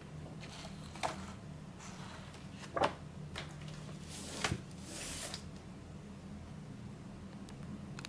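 Pages of a large hardcover book being turned, then the book closed: paper rustling with a few soft knocks, the loudest about three seconds in, and a brief swish of paper near five seconds.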